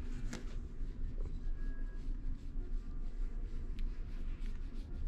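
Soft rubbing and scratching of a hand on a tabby cat's chin fur, over a steady low rumble, with a sharp click about a third of a second in.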